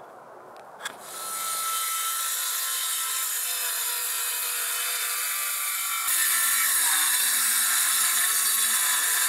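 Handheld circular saw starting up about a second in and cutting along a wooden log beam, a steady whine of the motor and blade in the wood that gets louder about six seconds in.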